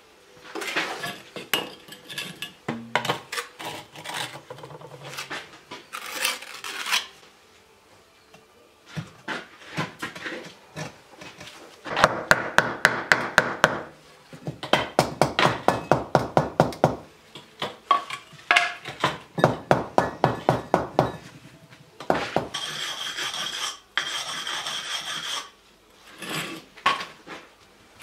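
Bricklaying on a brick stove: scattered knocks, then runs of rapid scraping strokes, about five a second, of brick and trowel worked against brick and mortar. Near the end comes a steady scraping rasp.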